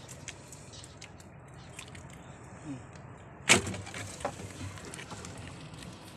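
Fish being worked out of a gill net in a wooden outrigger boat: light clicks and rustles from the net, then a single sharp knock a little past halfway, with a fainter knock just after.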